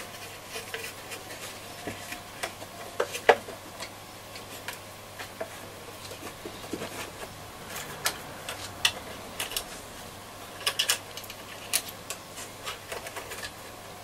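Irregular small clicks and taps of hands handling wires and fitting parts inside a transistor radio's wooden case during reassembly.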